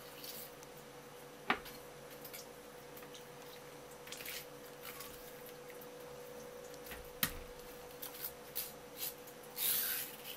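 Kitchen knife working along a conger eel on a wooden cutting board: two sharp knocks of the blade on the board and several short scrapes as it is drawn through the fillet, the loudest scrape near the end, over a faint steady hum.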